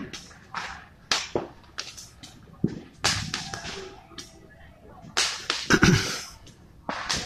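Fireworks and firecrackers going off: irregular sharp bangs and cracks, the loudest a deeper boom about six seconds in, with a faint falling whistle about three seconds in.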